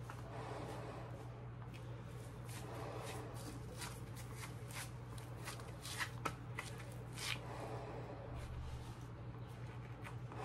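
Rustling, with a run of quick clicks and scrapes, from coated work gloves handling a 3M half-mask respirator. The clicks are densest through the middle, over a steady low hum.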